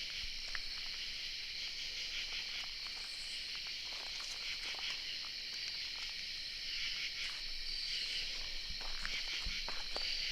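Steady chorus of night insects, a dense high-pitched buzzing trill, with scattered faint clicks.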